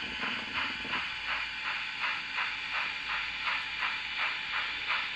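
Steam-locomotive chuffing from the DCC sound decoder of an N-scale Union Pacific 844 steam locomotive model running forward: an even, hissing chuff about three times a second.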